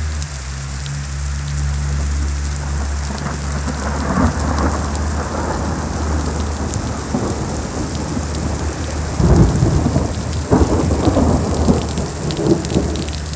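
Thunder rolling over steady heavy rain and hail, following a lightning flash. The deepest rumbles come about four seconds in and again from about nine seconds in.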